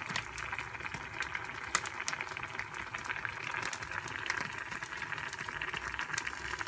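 Vegetable stew simmering in an enamelled cast-iron pot: a steady bubbling hiss with frequent small crackles.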